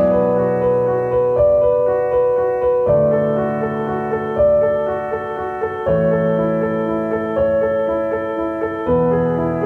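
Background music played on keyboard: sustained chords that change about every three seconds, under a line of evenly repeated notes.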